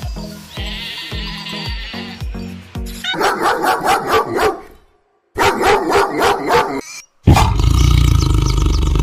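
Background music, then an animal calling in quick repeated pulses, in two bursts with a short break between. A loud, steady low sound starts about seven seconds in.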